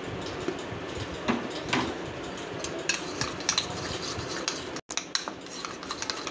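Metal spoon stirring and scraping a thick mayonnaise-and-chilli-flake sauce in a ceramic bowl, with repeated clinks of the spoon against the bowl that grow quicker after about three seconds. The sound drops out for an instant a little before five seconds.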